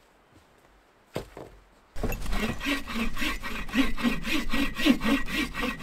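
A thump about a second in, then a folding bow saw cutting through a log with quick, steady back-and-forth strokes from about two seconds in.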